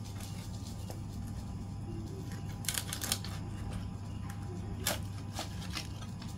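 Knife cutting up a grilled chicken on a wooden chopping board, with a few sharp clicks and snaps from the blade and the meat, clustered about three seconds in and again near five seconds, over a steady low hum.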